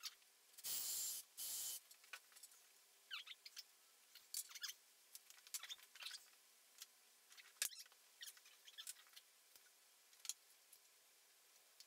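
A cordless drill run in two short bursts about a second in, then scattered faint clicks and scrapes of tools and wood being handled.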